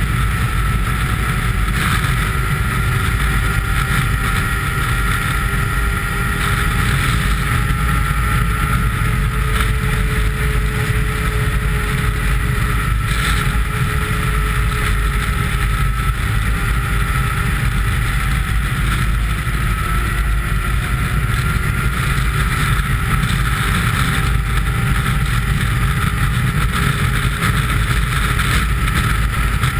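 Snowmobile engine running steadily at speed on a trail, its pitch drifting only slightly up and down, with a heavy low rumble of wind on the microphone.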